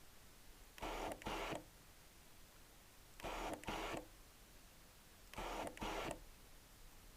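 Camera lens autofocus motor driving the focus back and forth: three pairs of short whirs, the two whirs in each pair about half a second apart, the pairs coming roughly every two and a half seconds.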